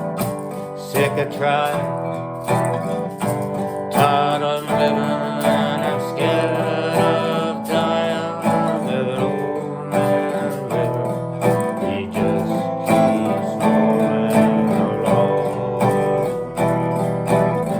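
A recorded song playing: guitar with a singing voice.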